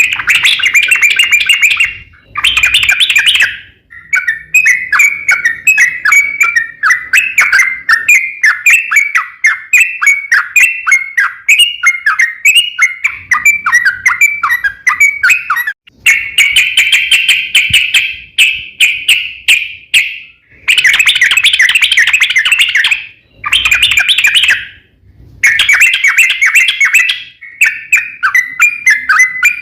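Yellow-vented bulbul (trucukan) singing a long, loud rapid song: fast runs of chattering, bubbling notes in bouts, broken by brief pauses of about a second several times.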